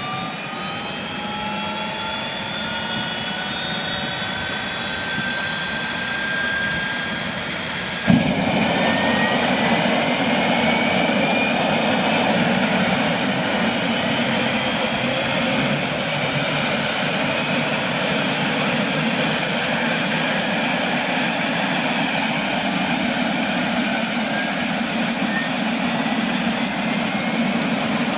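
Eurocopter AS350B2 AStar's Turbomeca Arriel turboshaft engine starting up: a whine rises in pitch as the engine spools up. About eight seconds in there is a sharp pop and the sound jumps louder and rougher, and a high whine keeps climbing as the engine comes up to speed.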